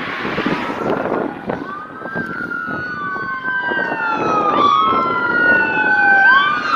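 Emergency vehicle siren wailing, with two tones sliding slowly up and down across each other, and one tone sweeping sharply up near the end. Low road rumble runs underneath.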